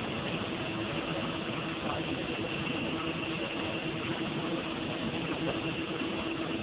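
Floatplane engine and propeller running steadily, heard from inside the cabin, with a constant hum over water rushing and spraying off the float as the plane runs along the water.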